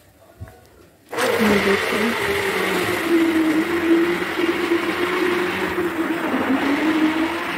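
Electric hand blender switched on about a second in and running steadily, puréeing banana pieces in milk in a steel saucepan. Its motor tone wavers slightly as it works.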